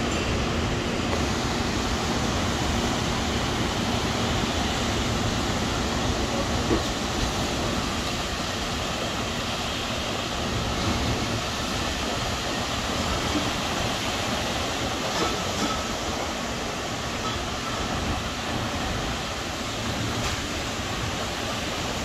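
Ocean surf and wind on the microphone: a steady rushing noise with a strong low rumble.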